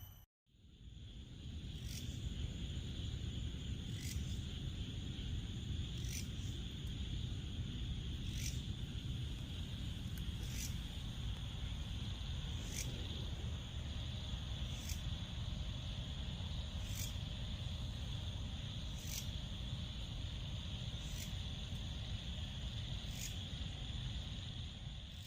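Tropical rainforest insects giving a steady high drone, with a short, sharp chirp repeating about every two seconds over a low rumble.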